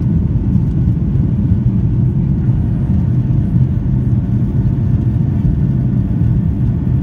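Steady low rumble of an airliner's engines and airflow heard inside the passenger cabin during the climb after takeoff.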